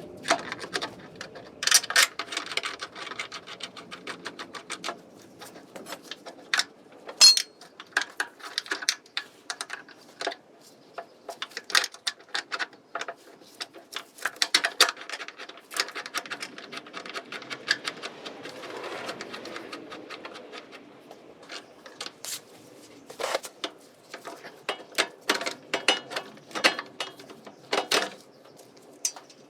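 Hand tools working on a car's front suspension: irregular metallic clicks, clinks and knocks, with runs of quick clicking.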